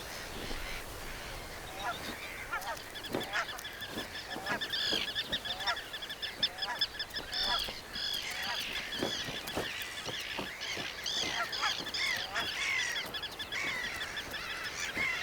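Breeding colony of terns and gulls calling: a dense chorus of many overlapping harsh calls. From a few seconds in it is joined by rapid runs of repeated notes.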